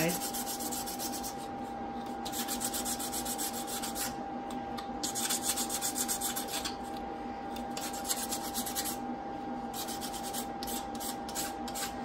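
Cured epoxy resin being hand-sanded with a sanding pad: rapid back-and-forth scratchy strokes in several spells with short pauses between them. The surface and edges are being lightly scuffed so that the next coat of resin will grip.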